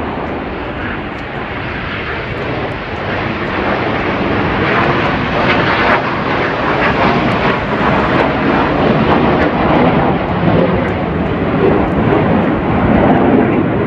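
Jet noise from the Snowbirds' formation of CT-114 Tutor jet trainers passing low overhead: a loud, steady rush that builds through the pass and cuts off suddenly at the end.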